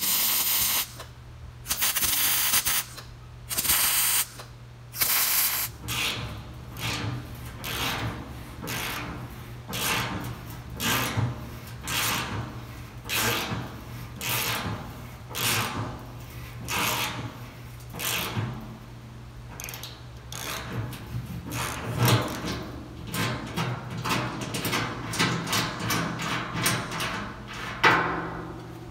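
Arc welding a steel nut onto a steel plate in four short welds in the first five seconds, then a long run of quick, rhythmic hand-scrubbing strokes over the fresh weld, one or two a second and getting faster near the end. A steady low hum runs underneath.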